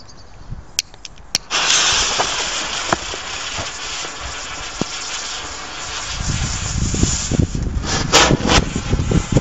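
Firework spraying sparks with a loud hiss that starts suddenly about a second and a half in and slowly fades, followed by a firecracker's fuse burning. A couple of sharp clicks come just before the hiss, and low rumbling with a few sharp cracks builds in the last few seconds.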